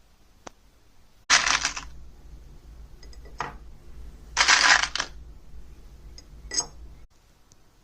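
Dillon RL1100 progressive reloading press being cycled on 9mm Luger: two loud metallic rattling strokes about three seconds apart, with lighter clicks and clatters between them, over a low hum that stops suddenly near the end.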